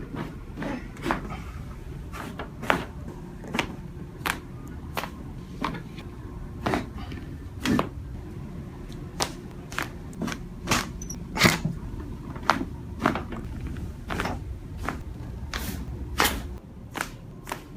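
Joints cracking and popping under chiropractic adjustment: an uneven run of sharp, short cracks, roughly one to two a second, one a little louder than the rest about halfway through.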